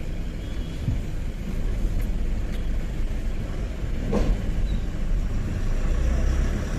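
Tata 1512 truck's diesel engine and road noise heard from inside the cab while driving: a steady low rumble.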